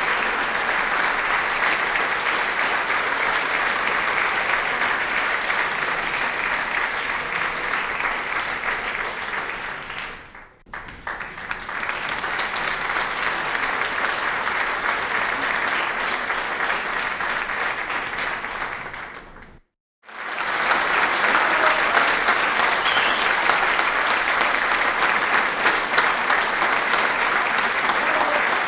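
Live audience applause, many hands clapping steadily. One round fades out about a third of the way in and a second begins. That round cuts off abruptly, and after a brief silence a third, louder round starts.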